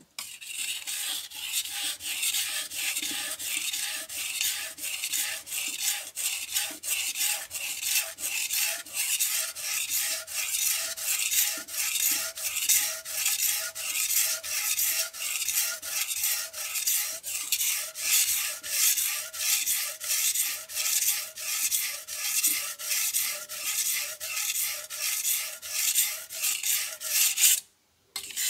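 Knife blade scraped back and forth across a whetstone in steady, even strokes, about two a second. The strokes stop shortly before the end, with one brief stroke after.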